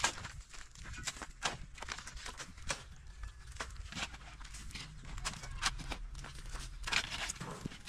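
A pickaxe and small shovels striking and scraping dry, stony ground while digging, with irregular sharp knocks several times a second.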